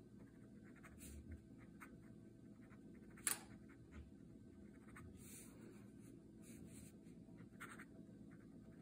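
Fine steel nib of a fountain pen scratching faintly across cheap ledger-pad paper in short strokes as it writes, with one sharp tick about a third of the way in.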